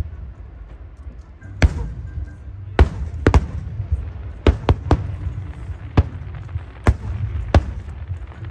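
Aerial fireworks shells bursting: about nine sharp bangs at irregular intervals, some in quick succession, over a steady low rumble.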